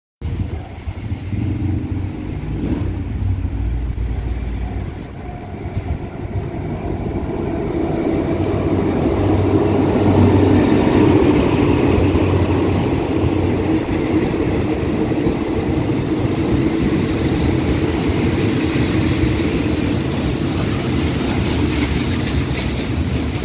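State Railway of Thailand train pulling into the station: a low engine hum at first, then the coaches rolling past on the rails. The rolling is loudest about ten seconds in and steadies as the train slows to a stop.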